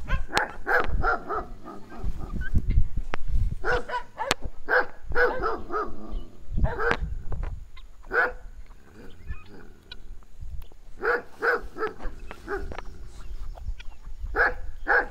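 Animal calls in several bursts of rapid, short repeated notes, separated by brief pauses.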